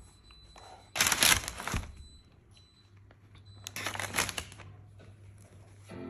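Paper packaging rustling and crinkling as the new laptop is turned over and its lid is opened, in two bursts: a louder one about a second in and another about four seconds in.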